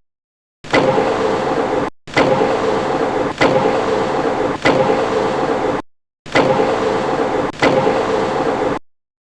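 Metal lathe running with a steady whine and an occasional sharp tick, in short stretches that cut off suddenly into silence and start again.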